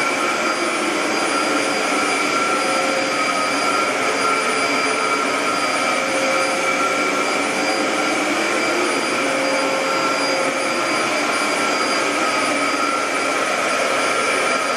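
Dyson DC07 upright vacuum cleaner running steadily, a continuous airy whine with several high steady tones and no change in pitch or level.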